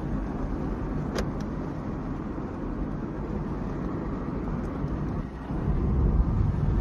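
Car driving, heard from inside the cabin: a steady low rumble of road and engine noise, with a sharp click about a second in. The rumble grows louder near the end.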